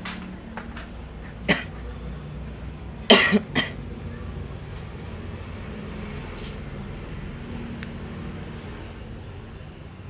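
A man coughing: one cough about a second and a half in, then a louder fit of two or three harsh coughs around three seconds in, over a steady low hum. The coughing is faked for a coughing-up-blood prank.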